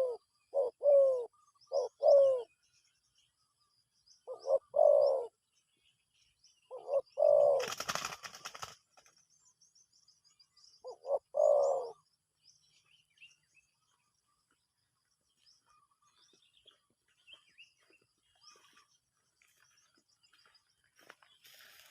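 A dove cooing in short repeated phrases of a few notes each, in several bouts over the first twelve seconds or so, then falling silent. Faint high chirps from small birds run underneath, and there is a brief rustling noise about eight seconds in.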